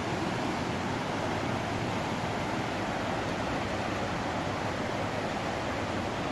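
The South Alouette River in flood, its fast, swollen water rushing and churning in a steady, even noise.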